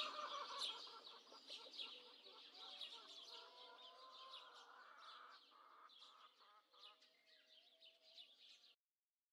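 Chickens clucking and chirping, growing steadily fainter, then cutting off abruptly near the end.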